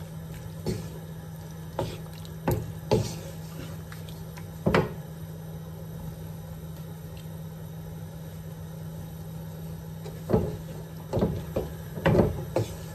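Wooden spoon stirring a simmering sauce in a non-stick wok, with several short knocks of the spoon against the pan in the first few seconds and again from about ten seconds in, over a steady low hum.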